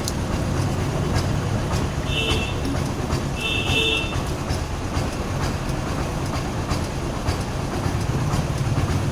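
Steady low mechanical rumble, like a running engine or passing traffic, with faint irregular clicks and two short high-pitched beeps a little over a second apart about two seconds in.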